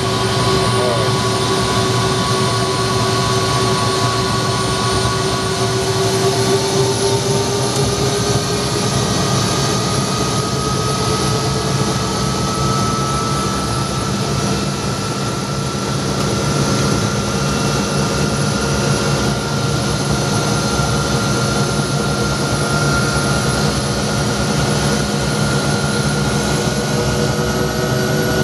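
Turbine helicopter engine running, heard from inside the cockpit: a loud, steady drone under a high turbine whine that rises slowly in pitch as the engine speeds up.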